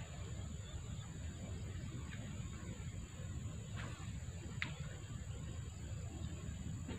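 Steady high-pitched insect drone over a low background rumble, with a few brief chirps about two, four and four and a half seconds in.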